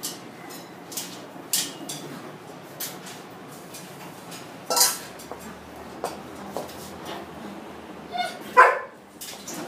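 Alaskan Malamute barking briefly three times: once about halfway, then twice close together near the end, the last the loudest, with a few light clicks between.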